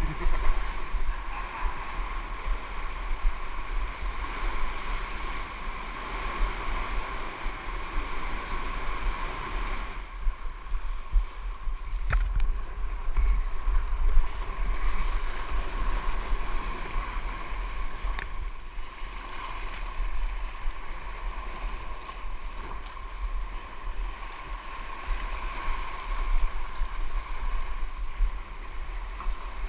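Sea water washing and splashing around a kayak, with wind rumbling on the microphone and a couple of sharp knocks about twelve and eighteen seconds in.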